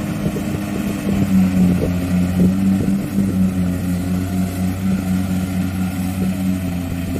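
Diesel engine of a tracked rice combine harvester running steadily under load, a continuous throbbing hum with a few light rattles in the first seconds, as the machine drives on with its tracks caked in sticky paddy mud.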